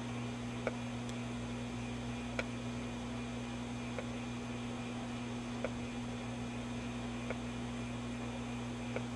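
Steady low electrical hum and hiss from a running Admiral 24A12 vintage tube television set, with faint clicks every second or two.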